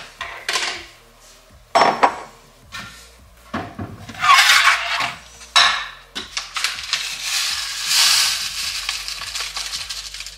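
Dishes clattering and knocking as a glass bowl is taken out and set down on a digital kitchen scale, then rolled oats poured from a bag into the glass bowl, a steady rustling hiss over the last few seconds.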